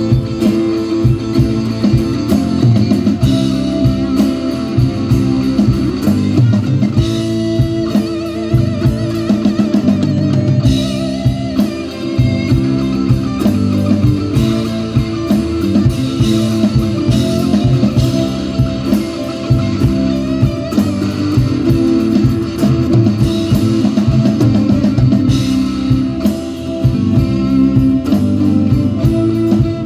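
Live rock band playing: guitars, bass guitar and drum kit together at a steady, loud level.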